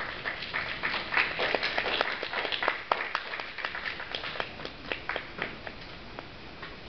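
A small audience applauding: many scattered hand claps, densest in the first few seconds and thinning out toward the end.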